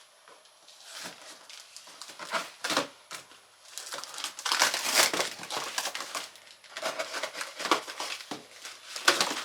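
Cardboard box and packing material being handled: irregular crinkling, rustling and tearing as packaging is pulled open and parts are taken out, busiest around the middle and again near the end.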